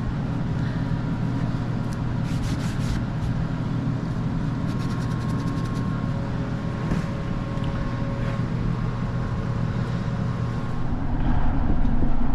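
Vehicle cabin noise while driving: a steady engine and road drone with a few light clicks, getting louder near the end.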